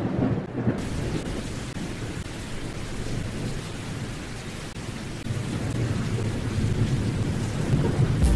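Thunderstorm ambience: a low rumble of thunder at the start, then a steady hiss of rain from under a second in, with the rumble building again about five seconds in.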